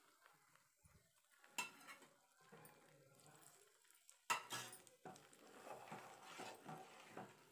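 Steel spoon scraping and clinking against an aluminium pan while stirring thick, thickening Mysore pak mixture. Two sharp clinks, about one and a half seconds in and again past four seconds, stand out over quiet scraping.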